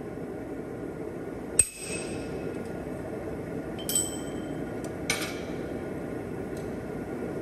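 Three separate metal-on-metal strikes from a hammer on steel at the anvil, each leaving a short high ring. They come about a second and a half in, near four seconds and just after five seconds, and the first is the loudest. A steady rushing noise runs underneath.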